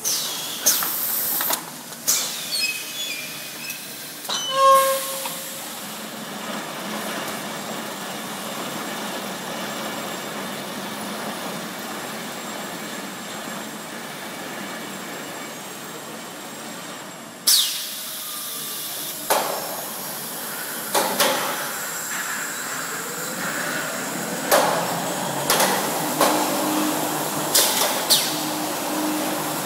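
Automatic pallet stretch-wrapping machine with film-welding unit running: a steady mechanical hum from its motors and conveyor, broken by sudden sharp hissing sounds. Several of these come in the first few seconds and a string of them in the last dozen seconds, with a short beep about four and a half seconds in.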